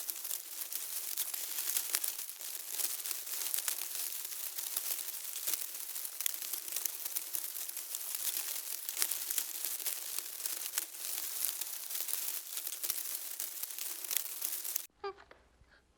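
Dense crackling, crinkling noise full of sharp clicks that cuts off abruptly about fifteen seconds in, followed by a few faint short chirps.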